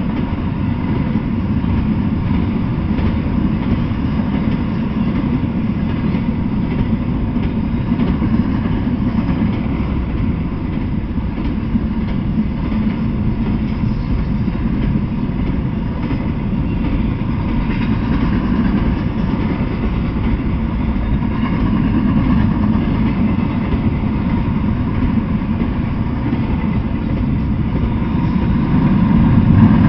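Double-stack intermodal freight train rolling past: a steady rumble of steel wheels on the rails, growing a little louder near the end.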